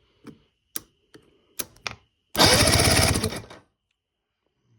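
Electric starter briefly cranking a 50 hp Force outboard engine, a fast even chatter lasting just over a second, during a spark test with a plug grounded outside the cylinder. A few sharp clicks come before it.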